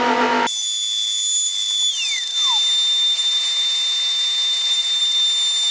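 Table-mounted router running with a high, steady whine as wood is fed past the bit, with one tone sliding down in pitch about two seconds in.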